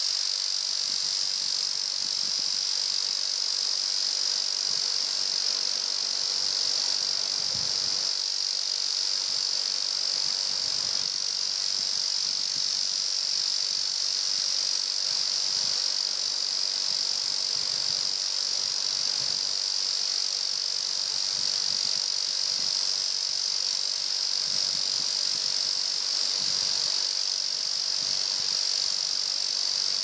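Steady, high-pitched chorus of insects in the forest, with a faint repeating pulse above it that comes and goes. Under it runs a weaker, even rush of falling water from the waterfall.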